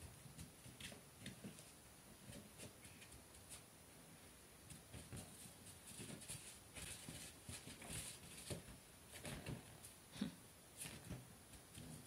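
Faint, scattered taps, bumps and rubbing of a ferret tussling with latex balloons on a carpet.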